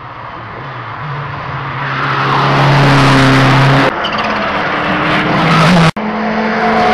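Rally car coming flat out towards the corner, its engine note steady and growing louder over road and tyre noise. About four seconds in the engine note drops suddenly as the car lifts off for the junction. Near six seconds the sound cuts out for an instant.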